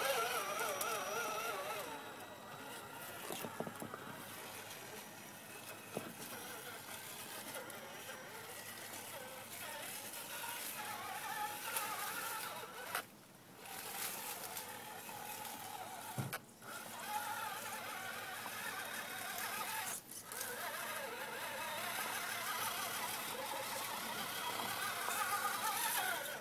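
Electric motor and gearbox of an RC scale rock crawler whining, the pitch wavering up and down with the throttle as it climbs over rocks, cutting out briefly three times when the throttle is let off.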